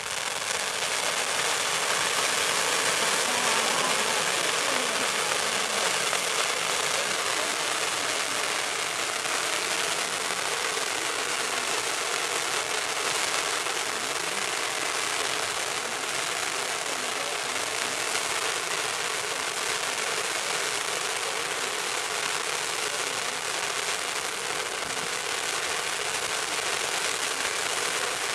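Ground firework fountain spraying sparks with a steady, dense crackling hiss and little low rumble.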